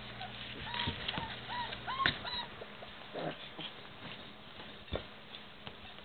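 Puppies giving a quick run of about five short, high squeaks or yips in the first two seconds, among scuffling and light clicks of paws moving about.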